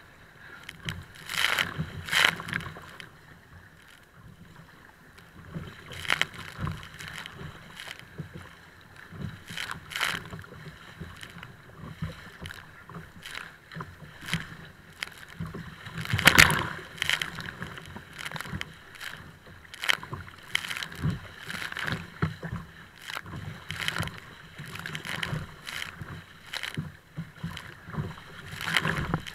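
Choppy waves slapping and splashing against a kayak's hull, in irregular splashes about a second apart, with the loudest about halfway through.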